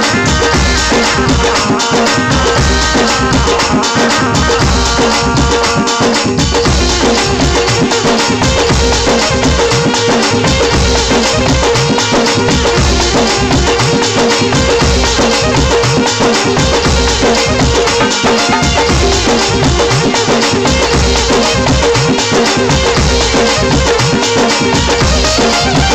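Instrumental interlude of live Rajasthani folk devotional music: a steady drum beat with shaker-like rattle percussion, and a melody line that drops out about six seconds in.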